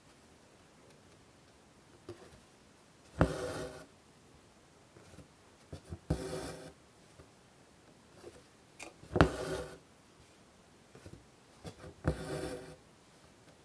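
Embroidery needle and white thread worked through fabric in long-and-short stitch: four stitches about three seconds apart, each a sharp tick as the needle pierces the cloth followed by a short rasp as the thread is drawn through.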